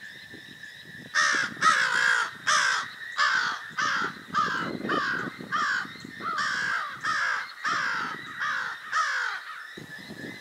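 A bird calling: about sixteen short calls, each falling in pitch, at about two a second, starting about a second in and stopping near the end.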